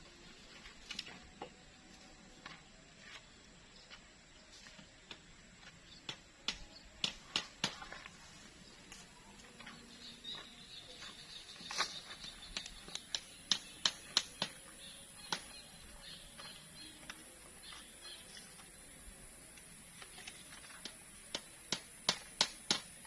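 Sharp knocks or taps in quick clusters of several a second, separated by quieter stretches, with a faint steady high-pitched whine coming in about halfway.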